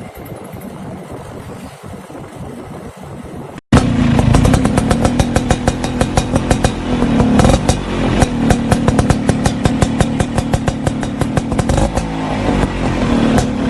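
A motorcycle engine running steadily, with many quick rattling clicks over it; it starts abruptly after a short, quieter stretch about a third of the way in.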